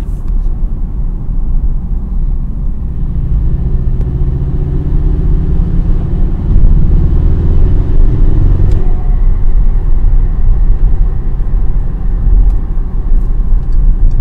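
Car driving in gear, heard from inside the cabin: steady engine and road rumble, with the engine note rising between about four and nine seconds in as it pulls harder.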